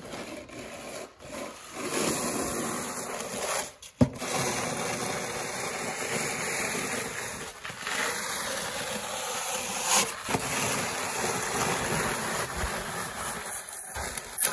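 Snow shovels scraping heavy, wet snow that sticks to a concrete driveway, a long continuous scrape. A sharp knock comes about four seconds in, and another about ten seconds in.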